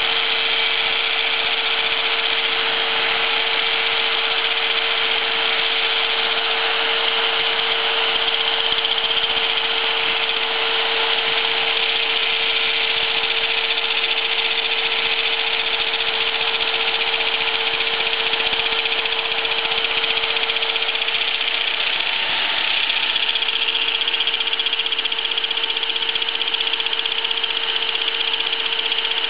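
Electric angle grinder running steadily, its disc grinding down a weld on a slowly turning steel shaft; an electric drill drives the shaft through rubber bands. The steady whine wavers briefly about two-thirds of the way through.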